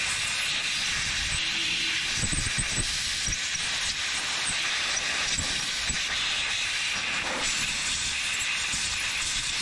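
Compressed air blow gun hissing steadily as air is blown through the carburetor parts to clear them, then cutting off suddenly at the end.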